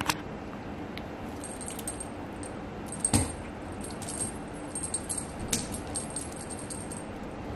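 Cats swatting and pouncing at a feather wand toy on a bed: light clicks and clinks from the toy throughout, and a thump about three seconds in as a cat leaps onto it, over the steady noise of an electric fan.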